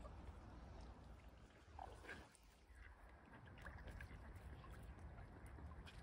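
Near silence: faint outdoor ambience with a steady low rumble and a few faint ticks.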